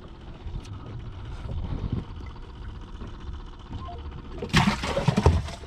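Low steady rumble of wind and water around a small boat. About four and a half seconds in comes a short, loud burst of splashing as a crappie is dropped into the boat's cooler.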